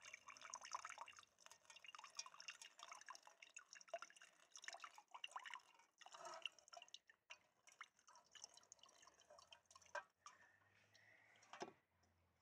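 Hot hemlock-needle tea poured in a thin stream from a pot into a perforated stainless steel strainer basket, faintly trickling and dripping through the holes; the drips thin out in the second half. A single sharper knock near the end.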